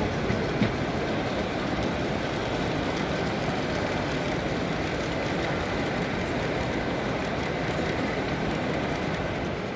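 Steady hubbub of a busy model railway exhibition hall: visitors' chatter blended with model trains running on the layouts, no single voice standing out. A brief click about half a second in.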